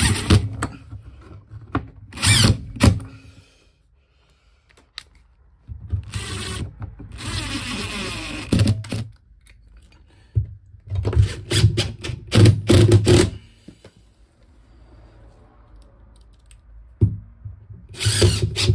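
Cordless impact driver driving screws through radiator brackets into timber behind the wall, in several separate runs with pauses between, the longest lasting about three seconds near the middle.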